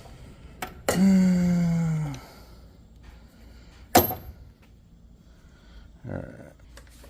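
Impact wrench motor spinning for just over a second, its pitch sagging slightly as it runs down, then a single sharp metallic clank a few seconds later.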